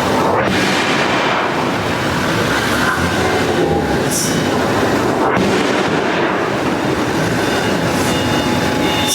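Loud, continuous clattering din of machinery at a mechanical iron-forging worksite, with no clear regular hammer beat.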